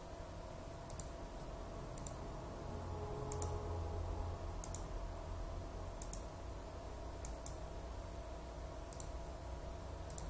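Computer mouse clicking: about nine single light clicks, roughly one a second, with two close together about two-thirds of the way in, over a faint steady low hum.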